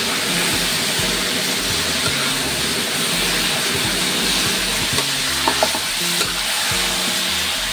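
Pig large intestine and pineapple sizzling in a hot wok as a ladle turns them over, with a steady frying hiss. A few sharp knocks of the ladle against the wok come a little past halfway.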